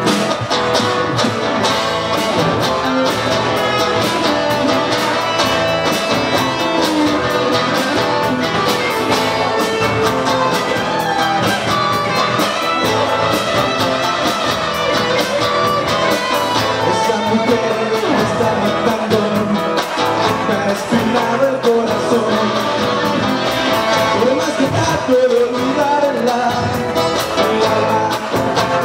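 A live rock band playing, with acoustic and electric guitars and drums, and a male voice singing over them.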